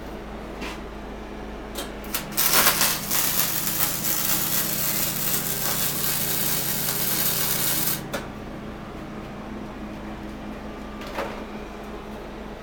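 Electric welding arc crackling and hissing for about six seconds, starting about two seconds in and cutting off suddenly, over a steady electrical hum. A few light clicks before and after.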